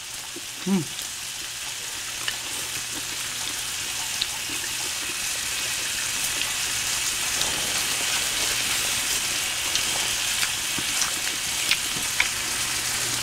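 Meat sizzling on a grill pan over a portable butane stove: a steady frying hiss scattered with small pops and crackles, slowly growing louder.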